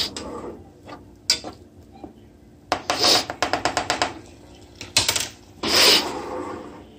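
Wooden spoon knocking and scraping against a saucepan while stirring buttered peas: scattered knocks, a quick run of about seven taps a little past the middle, and a short scrape near the end.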